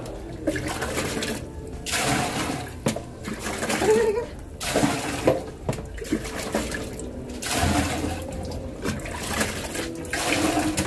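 Water splashing in repeated pours as a dog is rinsed during a bath: about half a dozen rushing splashes, each a second or so long, with short gaps between.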